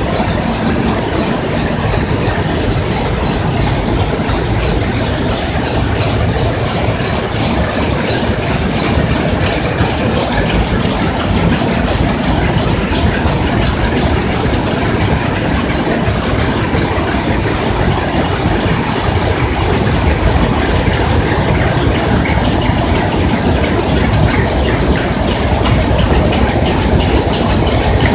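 Rapier looms, Shiva DR II weaving machines among them, running together at speed: a loud, continuous mechanical clatter with a rapid, even high-pitched ticking beat from their repeating weaving cycles.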